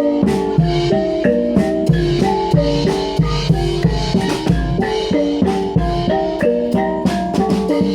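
Javanese gamelan ensemble for Reog Bantul playing: tuned metal keyed instruments run a quick stepping melody over hand drums, with deep drum strikes.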